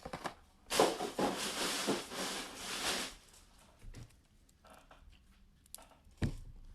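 Plastic shrink wrap being torn and crinkled off a sealed box of trading cards for about two seconds, followed by a few faint handling clicks and a thump near the end.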